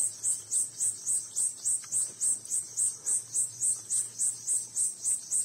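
An insect chirping steadily in a high pitch, about three chirps a second.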